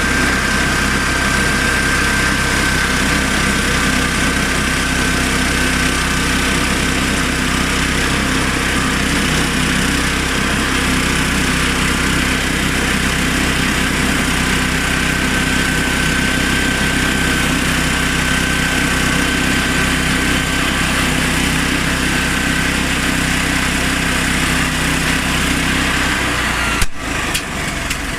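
Honda GX390 single-cylinder petrol engine driving a homemade portable sawmill, running steadily with a thin high whine over it. About 27 seconds in the sound breaks off abruptly and resumes changed.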